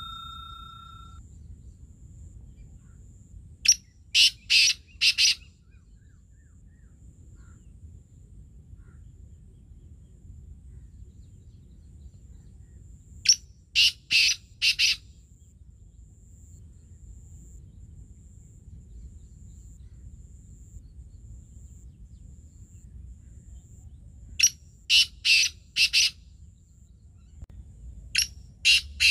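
Black francolin calling: four bursts of four or five quick, loud notes each, the first three about ten seconds apart and the last following a few seconds after the third.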